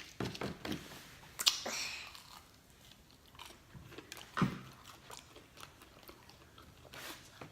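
A person chewing and biting into a burger, with irregular wet mouth smacks and louder bites about a second and a half in and again about four and a half seconds in.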